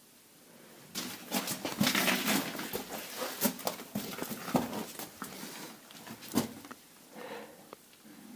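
Scuffing footsteps and clothing rustle of someone crouch-walking through a low cave passage, with scrapes and knocks on rock. It starts about a second in and fades near the end.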